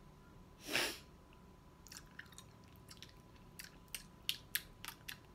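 A person chewing a large mouthful of food close to the microphone: a short breath out about a second in, then a run of wet clicking mouth sounds over the last few seconds.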